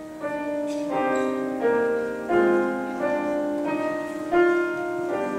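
Piano playing a slow run of sustained chords, a new chord struck about every two-thirds of a second.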